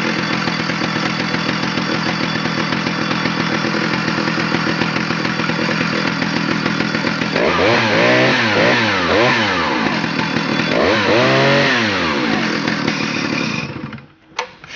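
Stihl 075's 111cc two-stroke chainsaw engine running steadily, then revved up and down in several quick blips about halfway through, and shut off near the end.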